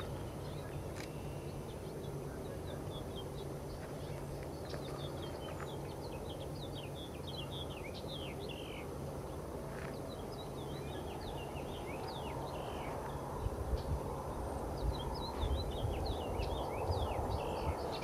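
Small birds chirping over and over, high and quick, above a steady low hum from the slowly taxiing Boeing 787-8's jet engines. Low buffeting on the microphone comes in over the last few seconds.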